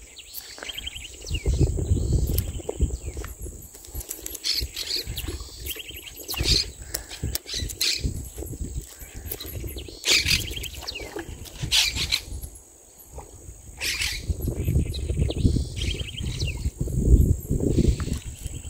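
Wind buffeting the microphone in uneven gusts, with birds calling in short chirps and brief trills now and then.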